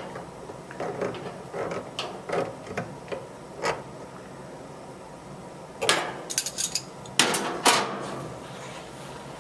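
Hand adjustment of a wall-mounted chemical dispenser and its hose fittings: scattered light clicks and knocks, then two louder bursts of rattling knocks about six and seven and a half seconds in.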